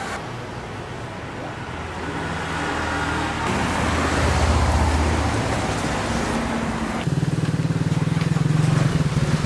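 Motor vehicle engines in street traffic. A low engine hum swells to a peak in the middle and fades. After a cut about seven seconds in, a small engine runs steadily with a rapid throb.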